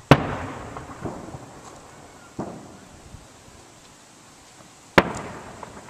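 Aerial fireworks shells bursting: three booms about two and a half seconds apart, the first and last loudest, each trailing off in a long rolling echo.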